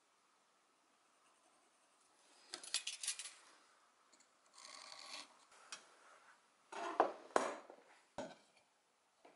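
Pencil scratching lines onto a pine beam along a metal square, in two short strokes, then a few sharp knocks, the loudest about seven seconds in.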